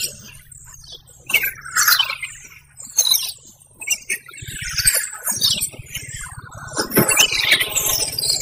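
Plastic packaging crinkling and rustling in irregular bursts as plastic-wrapped packages are handled and unwrapped, growing busier near the end.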